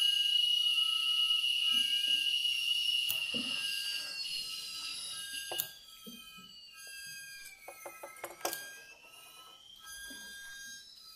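Experimental electronic noise music from homemade devices: a loud, steady high whistling tone fades and cuts off about halfway through, then pure tones glide down and back up, with a few sharp clicks and soft low knocks.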